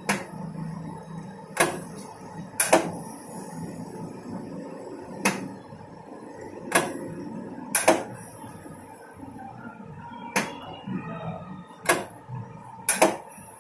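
Seed analyser working through a mustard seed sample in sub-samples: about nine sharp mechanical clicks, some in quick pairs, over a faint steady hum.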